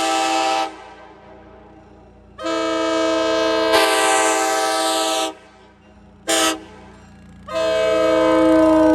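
Nathan K5LA five-chime air horn, a Graham White rebuild, blowing its steady chord in separate blasts: one ending under a second in, a long blast of about three seconds, a short blast, then another long blast starting near the end, the long-long-short-long grade-crossing pattern.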